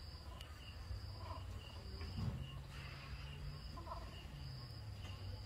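Insects calling steadily in the background: a continuous high trill with a short chirp repeating about twice a second, over a faint low rumble.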